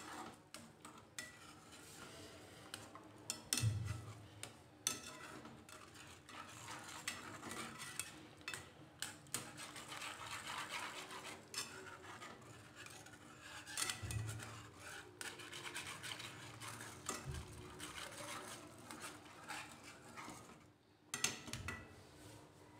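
Wire whisk stirring white sauce in a non-stick pan: continual light scraping and clicking against the pan, with a few louder knocks. The sauce is milk added to a flour-and-ghee roux, stirred steadily so the flour does not form lumps.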